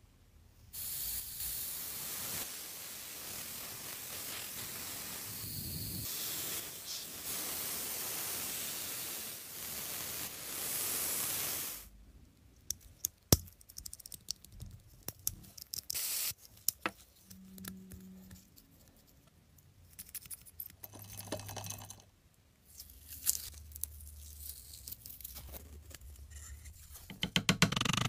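A steady spray hiss for about eleven seconds, then scattered sharp clicks and short scrapes of small metal parts being handled, with a burst of louder clicking near the end.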